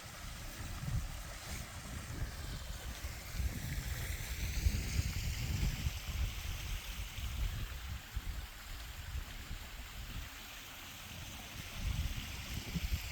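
Wind buffeting the microphone with an uneven low rumble, over a steady outdoor hiss.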